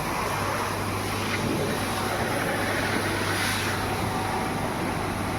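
Steady vehicle and machinery noise with a constant low hum, swelling about three seconds in as if a vehicle passes by.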